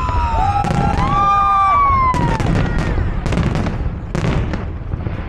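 Fireworks display: shells bursting in a quick, irregular series of sharp bangs over a steady low rumble. Spectators' voices call out over the bangs.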